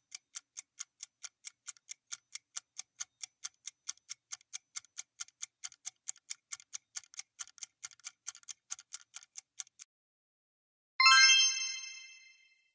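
Quiz countdown timer sound effect ticking quickly and evenly, about four ticks a second, for about ten seconds as the timer runs down to zero. Near the end a louder bright chime rings out and fades, marking the reveal of the correct answer.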